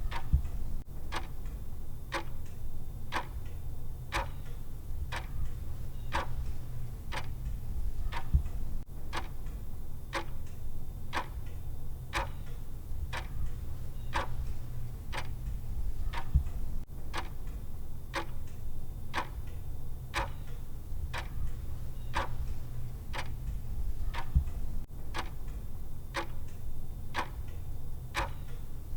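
Clock ticking at a steady tick-tock, about two ticks a second, over a low steady hum.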